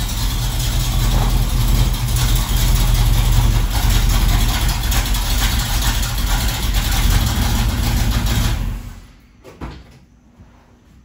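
1975 Chevrolet Nova's engine running as the car rolls in and idles, then shut off about nine seconds in. A short thump follows.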